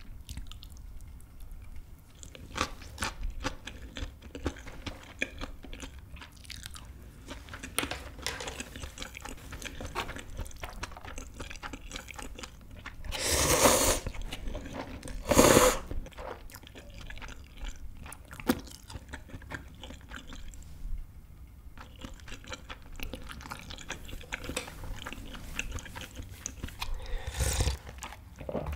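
Close-up chewing of a rice burger with small wet mouth clicks. About halfway through come two loud slurps of instant ramen noodles, and near the end a slurp of broth drunk from the bowl.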